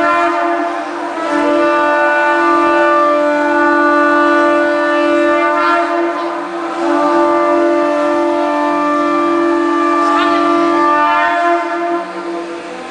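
Conch shell (shankha) blown in one long, loud note with a few slight shifts in pitch, weakening near the end. In a temple it is sounded to announce the opening of the altar curtains for arati.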